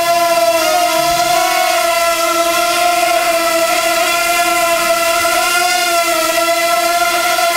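Wingsland S6 mini quadcopter's propellers whining steadily as it hovers, the pitch wobbling a little as the motors correct.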